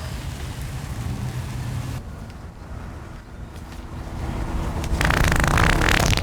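Low outdoor rumble of wind and traffic, then about five seconds in a loud, rapidly pulsing wet fart sound.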